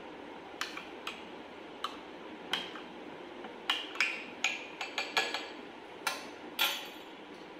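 A spoon stirring jamun fruit in liquid in a large glass jar, clinking against the glass a dozen or so times, the clinks coming closer together from about halfway through. Near the end the spoon is laid down in a glass bowl.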